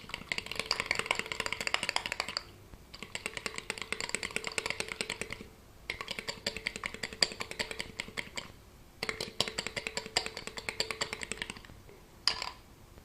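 Egg white being beaten fast with a utensil against a plate, a rapid clatter of strokes in four runs of a few seconds each with brief pauses between them.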